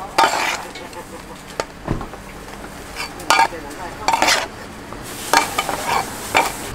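Steel cleaver blade scraping across a wooden board, gathering and folding a sheet of pounded peanut brittle between rounds of pounding. It comes as a series of short scrapes, several of them in quick succession near the end.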